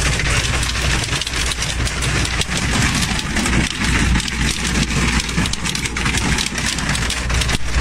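Dense clatter of hail pelting a vehicle's windshield and body, heard from inside the cab, over a steady low rumble of the engine and tyres on the road.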